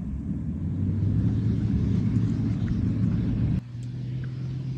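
Engine of a rally pickup truck running hard as it speeds away across loose dirt, heard as a steady low rumble. About three and a half seconds in, the sound drops suddenly in level and settles at a slightly higher pitch.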